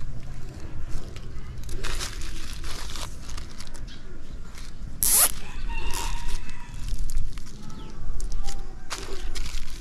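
Plastic wrap rustling and crinkling under the hands while a nylon cable tie is threaded and pulled tight around it to secure a soil-packed air layer, with one sharp zip about five seconds in.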